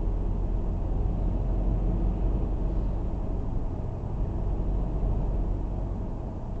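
Steady low road and engine rumble inside a moving car's cabin, with no sudden sounds.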